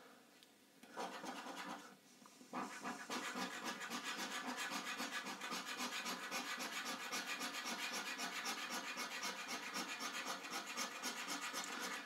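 Scratching off the silver panel of a paper scratchcard, with rapid back-and-forth strokes. A short scratch comes about a second in, then steady rapid scratching from about two and a half seconds on.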